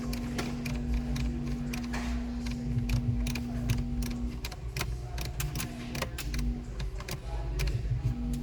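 A steady electrical hum that drops out about halfway and returns in short snatches, with many irregular clicks and small mechanical ticks over a low rumble.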